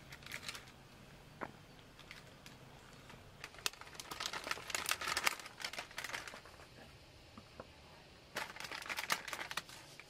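Plastic food packaging crinkling as it is handled and pulled open, in two main bursts, the longer one about four seconds in and another near the end, with scattered small clicks and taps.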